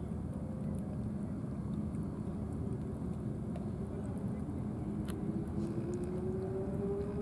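Steady low outdoor rumble, with a faint engine hum that slowly rises in pitch from about the middle on, and a few faint clicks.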